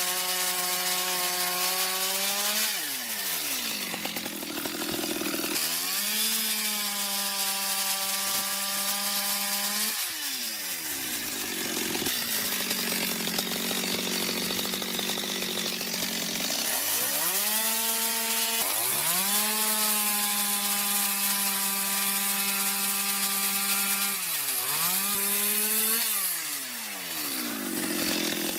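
Two-stroke chainsaw engine revving at a high steady pitch, dropping away and revving back up several times. A rough sawing noise fills the gaps between the revs.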